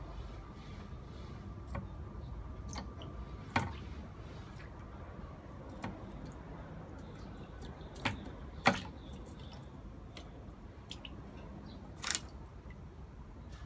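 Shallow water sloshing and splashing in a plastic tub as a snapping turtle shifts about under a prodding stick, with a handful of sharp, scattered taps and knocks. The loudest two come close together a little past halfway.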